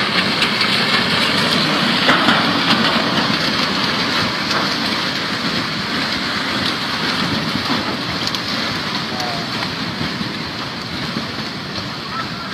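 Flash-flood debris flow of thick mud, rocks and branches rushing down a riverbed: a loud, steady rushing noise with scattered sharp knocks, easing off slightly toward the end.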